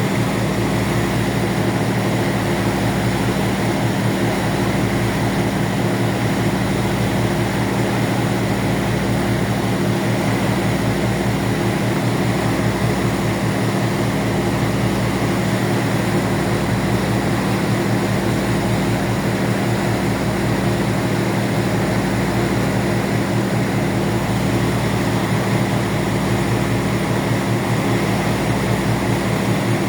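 A ferry's engines droning steadily as a constant low hum over a steady rushing noise, heard on board the boat.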